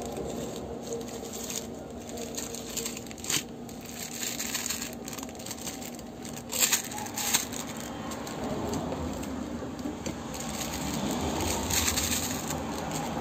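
Plastic laundry-detergent sachets being handled and stood up in a plastic organizer tray: light crinkling and rustling, with a few sharp clicks and taps, one about three seconds in and two close together about halfway.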